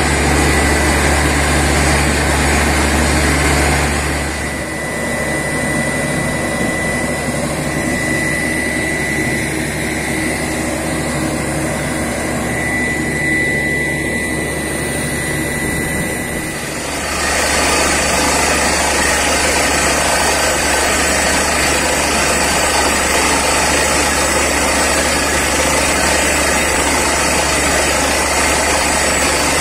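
Truck-mounted borewell drilling rig running, its engine and air compressor making a steady drone with a thin steady whine. From about four seconds in the low hum drops away and the sound is thinner and a little quieter, coming back full at about seventeen seconds.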